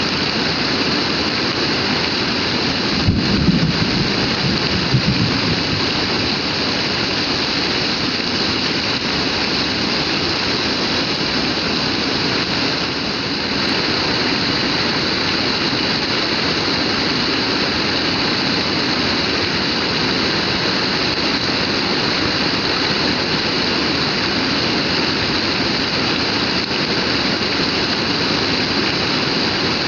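Heavy rain pouring down in a steady, dense hiss. A brief low rumble with a couple of thuds comes about three to five seconds in.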